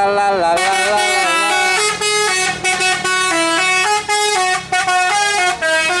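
A tour bus's telolet multi-tone air horn playing a melody. It opens with a wavering, bending phrase for about a second, then runs into quick stepped notes that change several times a second.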